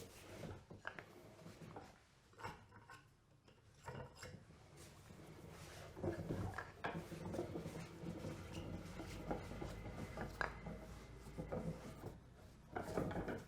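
Faint scattered clicks and knocks with light rubbing; a low steady hum joins about six seconds in.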